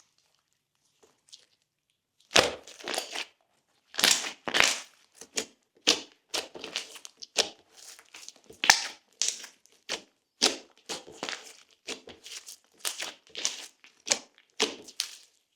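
Glossy slime being squeezed and pressed by hand, making a string of irregular squishy, crackling bursts that start about two seconds in.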